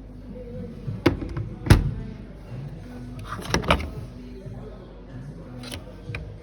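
Background music with several sharp knocks and clunks, the loudest a little under two seconds in and a quick pair around three and a half seconds.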